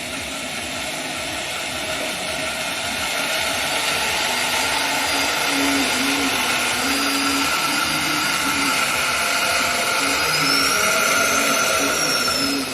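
Handheld electric power tool running steadily with a whine for about twelve seconds, then switched off.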